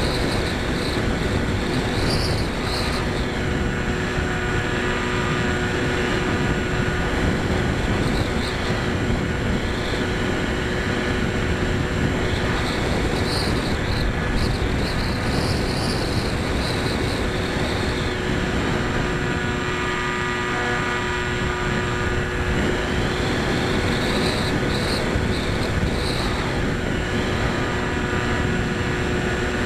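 EPP foam FPV model plane in flight, heard from its onboard camera: the motor and propeller whine steadily under a rush of wind noise, the higher part of the sound swelling and easing a few times.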